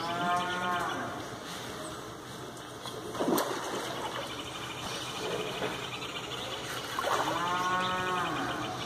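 A cow mooing twice, each call about a second long, rising and then falling in pitch; the second call comes about seven seconds after the first.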